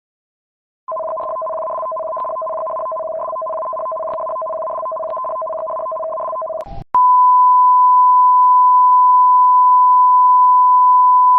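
Electronic broadcast tones. A two-note tone with a crackle of clicks runs for about six seconds, then, after a short break, gives way to a single steady, louder tone that holds until near the end.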